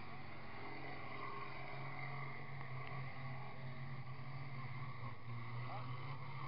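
Diesel engines of racing combine harvesters running, a steady low drone.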